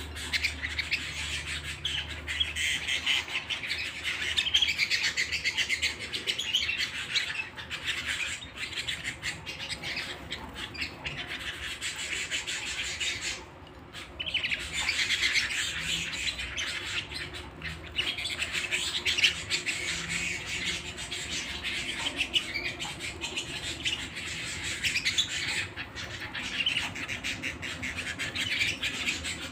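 Domestic canary singing long, rapid warbling and trilling song phrases, with a short pause a little before the middle.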